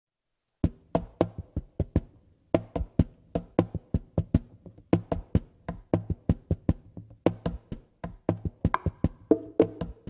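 Percussion playing a syncopated rhythm of sharp, dry strikes with short breaks. A pitched instrument comes in faintly near the end.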